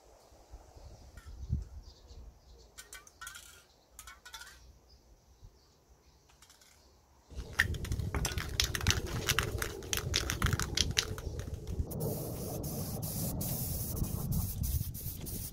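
Aerosol can of spray lacquer rattling as it is shaken, then hissing in spurts as it sprays a wire metal shelf. The first half holds only faint rustles and clicks; the shaking starts suddenly about halfway in, and the spray hiss takes over about three-quarters in.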